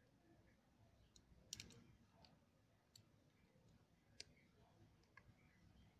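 Faint, sharp metallic clicks of pliers working on the parts of a motorcycle front brake master cylinder, about six clicks spread out, the loudest a little after a second and a half in.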